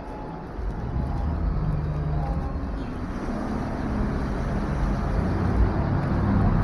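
Street traffic with a motor vehicle's engine running close by, a low steady hum that grows louder over the last few seconds.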